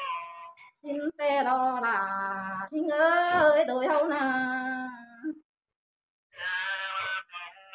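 A woman singing unaccompanied in long, drawn-out notes that bend and waver in pitch, in the style of a Thái call-and-response song. The singing breaks off for about a second near the end, then a voice starts again.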